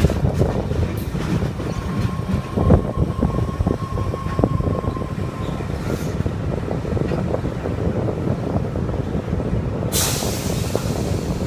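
Sydney Trains V-set double-deck electric train running on the track, heard through a window gap: a steady rumble of wheels on rail with many clicks and knocks. A faint high tone is held for a few seconds about two seconds in, and a sudden rush of hiss comes near the end.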